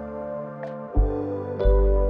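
Slow background music with sustained chords over deep bass notes; the chord changes about a second in and again shortly after.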